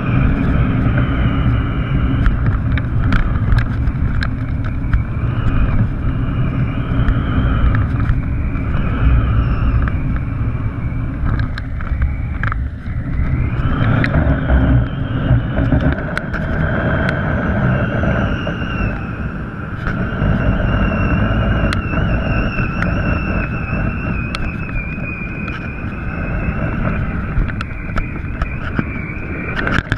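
Wind buffeting the microphone of a GoPro carried aloft on a kite: a loud, rough rumble throughout, with faint wavering whistle-like tones above it and scattered clicks.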